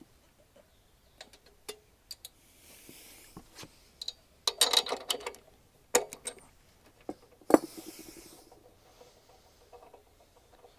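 Hayterette lawnmower engine being pull-started with its recoil starter, turning over briefly about halfway through without catching, among clicks and knocks from handling the mower. The engine does not fire because it is getting no spark.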